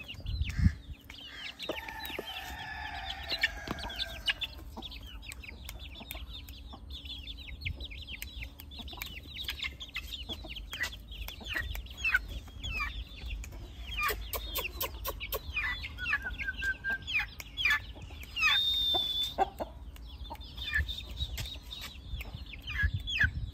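Chickens clucking and calling, with many short, high chirps throughout. A longer drawn-out call comes about one and a half to four seconds in, and a held high note just before the end. A low rumble on the microphone shows near the start.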